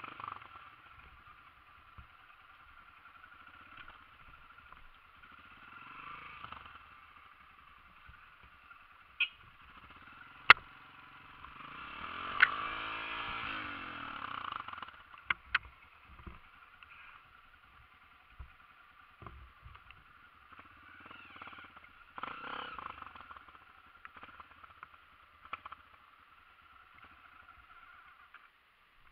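Honda CRF single-cylinder four-stroke dirt bike engine running on a rough trail, swelling louder for a few seconds in the middle, with several sharp knocks, the loudest about ten seconds in.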